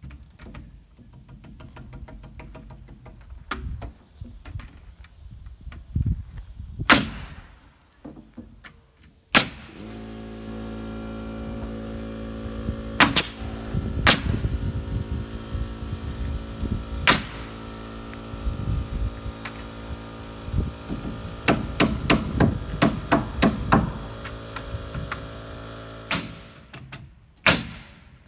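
A framing nail gun fires nails through rafters into a wall's top plate: single sharp shots a few seconds apart, with lighter knocks in between. About a third of the way in, a steady motor hum starts and runs on under the shots.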